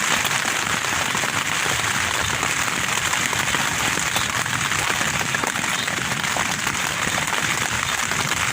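Tent fabric being battered by gusty wind: a steady, dense hiss with a fine crackle through it.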